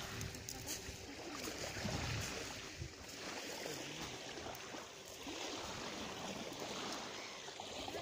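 Small sea waves washing at the shore: a steady noise of moving water.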